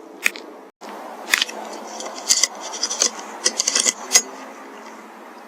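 A run of short, sharp clicks and clinks, about a dozen scattered over three seconds, over a low hiss.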